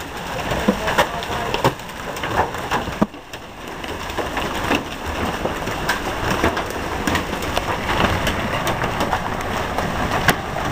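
Tornado-storm wind with heavy rain: a loud, dense rush of noise with many sharp hits scattered through it. The wind is strong enough to rip leaves off the trees.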